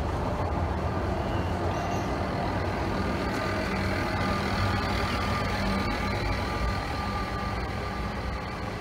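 Vintage electric tram and its wooden trailer cars rolling past close by on street rails: a steady low hum with wheel-on-rail rumble, fading a little near the end as the train moves away.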